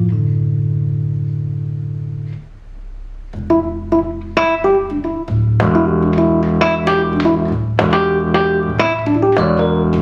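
Roland FR-3xb V-Accordion, a digital button accordion, playing free jazz. A held low chord fades over about two seconds, then there is a short lull, and from about three and a half seconds in come fast, jabbing staccato chords and note clusters struck with the fingertips.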